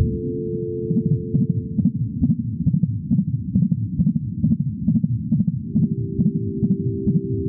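Unborn baby's heartbeat, a fast even whooshing thud of about two to three beats a second, set under soft held tones that change twice.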